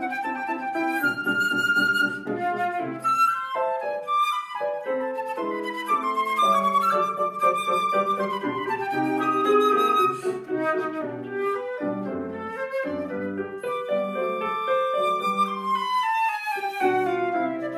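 Concert flute and grand piano playing a classical duet: a moving flute melody over piano accompaniment, with a long held flute note late on and then a falling run of notes near the end.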